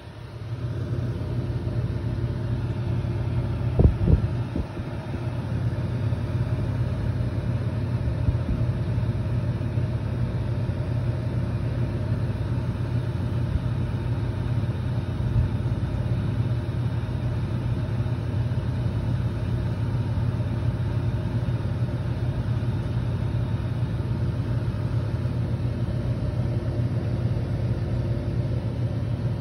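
Steady low hum of an air cooler's fan motor running without change. There is a brief bump about four seconds in.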